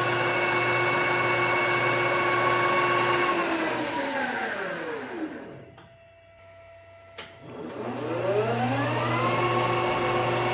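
1965 Colchester Mascot lathe headstock spinning at its top speed on a variable frequency drive, a steady whine of gears and motor. About three seconds in it winds down in pitch to a stop, a switch clicks, and about eight seconds in it ramps back up to full speed over a second or two.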